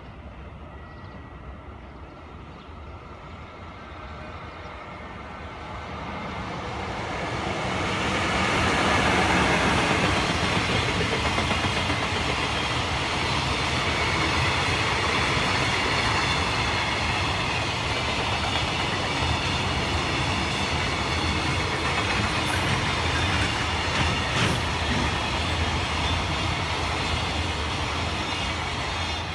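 JR Freight container train passing at speed behind an electric locomotive: the sound swells over the first several seconds as the train approaches, then settles into a steady clatter of wagon wheels over the rail joints as the container cars go by, with a few brief sharp high clicks in the second half.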